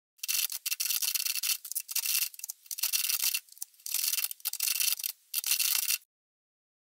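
Manual typewriter typing in quick runs of rapid, thin key clatter, about six runs with short pauses between, stopping suddenly near the end.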